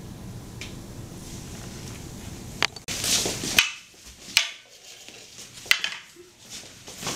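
Wooden poles clacking against each other in a mock sword fight: a few sharp knocks about a second apart, after a stretch of steady room hum.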